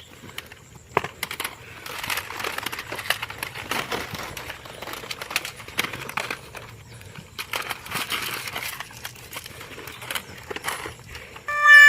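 Rustling and crinkling of plastic being handled, with many small irregular clicks and taps. Near the end a loud electronic boing-like sound effect with a wobbling pitch starts.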